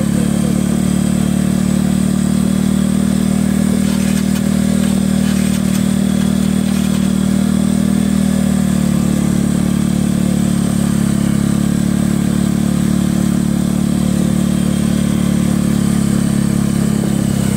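Bajaj Pulsar 200 motorcycle's single-cylinder engine running at a steady low road speed, with the throttle held even, heard from the rider's seat.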